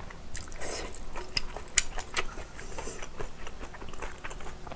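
Close-miked chewing of spicy instant ramyeon, heard as many small irregular wet mouth clicks and smacks with a few soft noisy swells.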